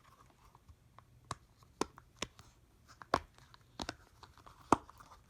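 Hands handling a collapsible silicone camp cup and its plastic parts, making about half a dozen sharp, irregular clicks and snaps.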